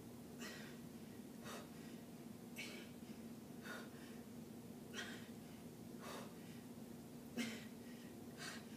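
A woman breathing with the effort of seated dumbbell shoulder presses, one soft breath about every second, over a steady low hum.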